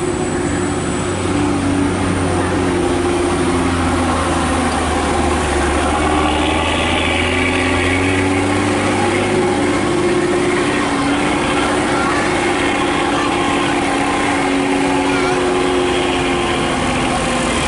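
A truck's diesel engine running steadily with a low drone that wavers slightly in pitch.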